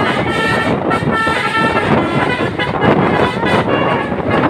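Truck's multi-tone 'telolet' musical horn sounding a short run of steady notes about a second in, over the rumble of road traffic.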